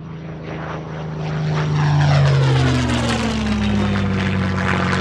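Propeller airplane with piston engines flying past: the engine drone grows louder over about two seconds, then drops in pitch as it passes and carries on steady.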